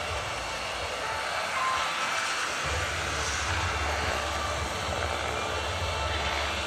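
Turbine engine of a large scale RC AgustaWestland AW139 helicopter running at flight power with a steady whine and hiss, over the low beat of its main rotor as it hovers. The low rotor beat grows stronger about two and a half seconds in.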